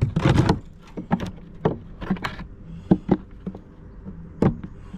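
Irregular knocks and clicks of wooden beehive frames being handled and shifted in the hive box, about seven sharp strikes spread unevenly over a few seconds.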